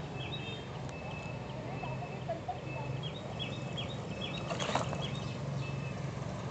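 Birds chirping in quick series of short high calls over a steady low hum, with a brief rustling noise about four and a half seconds in.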